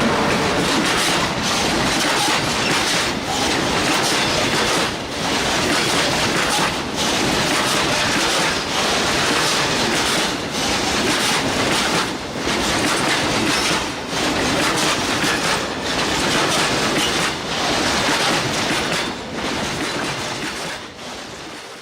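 Train running on the track: a loud, steady rumble and rattle with a regular beat about every two seconds, cutting off sharply at the end.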